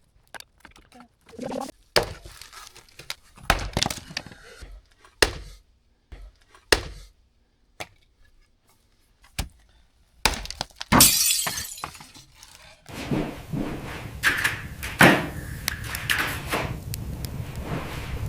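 Firewood logs knocked and dropped into a fireplace: a string of separate sharp wooden thunks with pauses between them. About two-thirds of the way in comes a brief loud hiss, and then a fire catches and crackles steadily.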